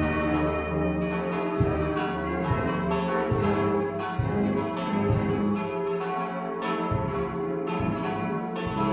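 Several church bells ringing together for a funeral, their strikes falling roughly once a second and overlapping, each note left ringing.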